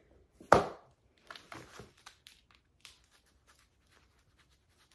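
One sharp snap about half a second in, then plastic packaging wrap crinkling and rustling with scattered small clicks, as hands work a small cutting tool at the zip ties binding a plastic-wrapped chair.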